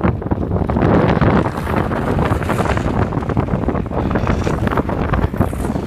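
Strong wind blowing across the microphone, a loud, steady rumbling noise with no pauses.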